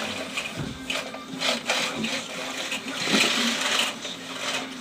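Plastic toy excavator and toy pieces scraping and knocking as they are pushed across the floor, in irregular rustling scrapes with a couple of dull knocks and one longer scrape near the end.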